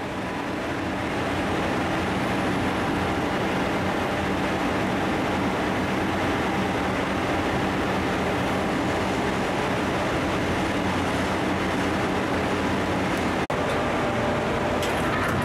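Steady mechanical drone of running machinery with a low hum, briefly cut off about thirteen seconds in.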